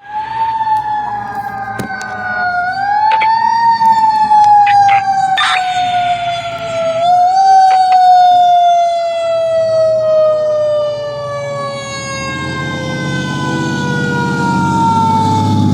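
Fire engine siren wailing as the truck responds, its pitch sliding slowly downward, pushed back up twice, then winding down steadily like a mechanical siren coasting. A short hiss comes about five seconds in, and the truck's diesel engine rumble grows louder near the end.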